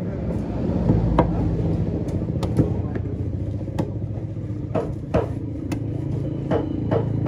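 Large knife cutting through fish flesh and striking a wooden chopping block in sharp knocks, one every second or so, over the steady drone of an engine running. Voices are heard faintly now and then.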